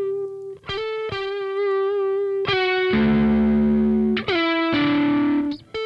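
Distorted electric lead guitar from a raw multi-track playing long held notes with vibrato. It breaks off briefly near the start, moves to a new lower note about two and a half seconds in, and slides down to another note about four seconds in.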